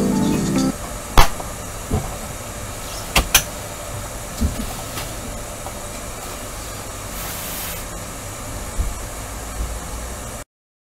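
Metal rear shield of a Dell OptiPlex 7450 all-in-one being pressed down into place by hand: a few scattered clicks and knocks, the loudest about a second in and a quick pair around three seconds, over a steady hiss.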